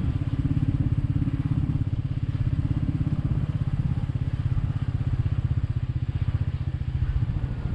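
Royal Enfield Meteor 350's single-cylinder engine running steadily under way, a low, quickly pulsing exhaust note.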